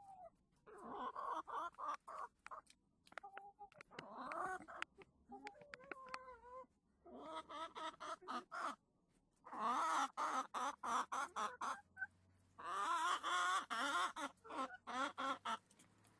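Chickens in a coop clucking and cackling in repeated bouts of quick calls, with the loudest cackling runs about two-thirds of the way through and again soon after.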